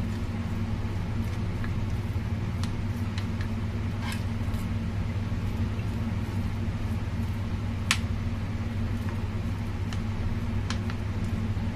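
Plastic spatula spreading and pressing soft grated radish batter in a metal cake tin, giving scattered light taps and clicks, with one sharper click about eight seconds in, over a steady low hum.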